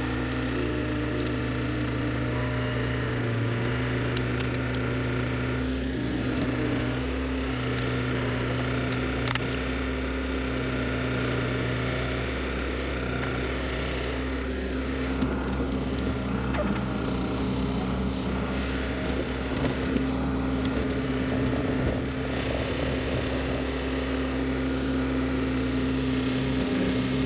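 Neuson 6003 excavator's diesel engine running steadily, with a few sharp knocks.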